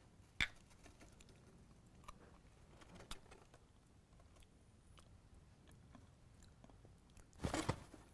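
Faint mouth sounds of a person chewing a spoonful of mesir macunu, a sticky spiced paste, with a few soft clicks. A short, louder burst of noise comes near the end.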